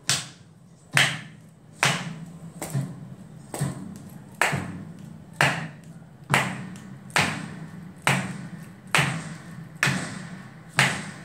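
Sharp taps in an even beat, a little more than one a second, each with a short low thud under it.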